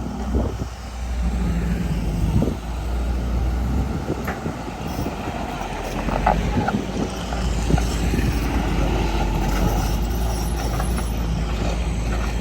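John Deere 200LC excavator running with a steady low drone, with a few scattered clunks. The engine note grows louder about seven and a half seconds in.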